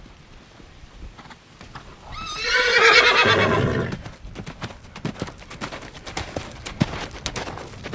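A horse whinnies loudly for about two seconds, a wavering call, then its hooves clip-clop in a rapid, uneven run of sharp knocks.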